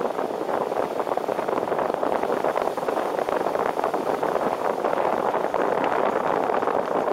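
Car driving on a wet road in the rain, heard from a camera mounted outside on the car: a steady rush of wind on the microphone and tyre hiss, with a dense fine crackle running through it.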